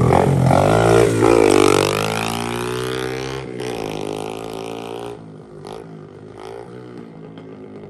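Small pit bike engine revving as it pulls away, its pitch climbing and bending with the throttle about a second in. It then fades as the bike rides off, dropping away sharply near the end.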